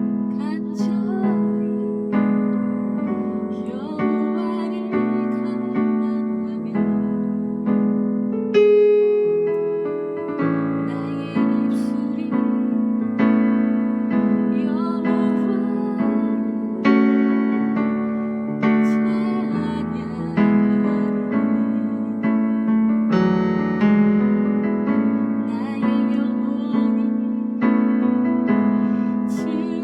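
Piano playing a slow hymn in full chords, a new chord struck every second or two and left to ring and fade.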